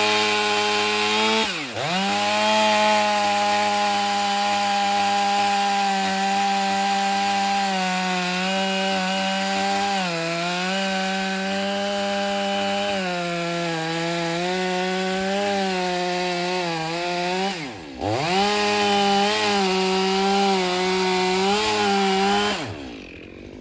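Stihl 500i fuel-injected two-stroke chainsaw with a 28-inch Cannon Duralite bar running at full throttle, cutting through dry beech logs. The revs dip and pick up again twice, about two seconds in and after about eighteen seconds, then fall off near the end as the saw drops back toward idle.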